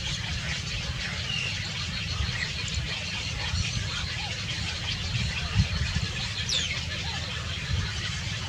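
A few faint, short bird chirps over a steady low rumble.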